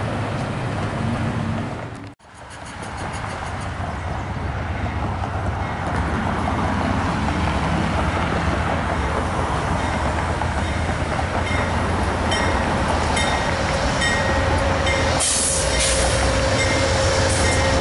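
Freight train rolling across a steel railway bridge, cut off abruptly about two seconds in. Then Amtrak passenger diesel locomotives approach and rumble onto the bridge, the noise building steadily, with a steady high whine joining in over the last few seconds.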